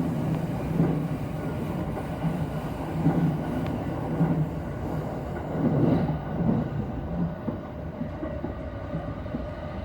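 Yokosuka Line electric commuter train running, heard from inside the passenger car: a steady rumble of wheels on the rails with a low hum and irregular thuds about once a second.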